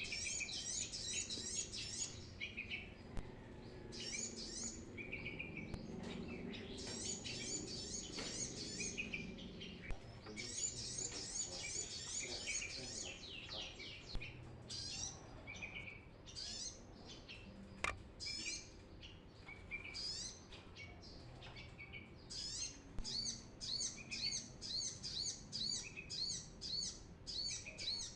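Brown-throated sunbird singing in full voice: fast, high chittering trills in long runs, breaking up into a string of short, quick phrases towards the end.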